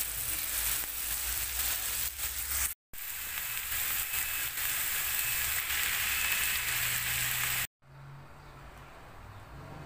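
Minced meat and chopped vegetables sizzling as they fry in a pan, a steady hiss that breaks off for a moment about three seconds in. Near the end the sizzling stops abruptly, leaving only a quiet, low, steady hum.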